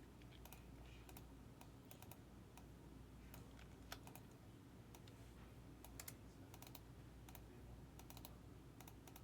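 Faint typing on a computer keyboard: quick, irregular keystroke clicks.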